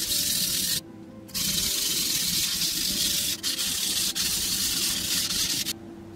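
A high-carbon stainless kitchen knife's single-bevel edge ground back and forth on a wet, coarse #220 Shapton Kuromaku whetstone: a gritty scraping hiss of strokes, with a short pause about a second in, stopping shortly before the end.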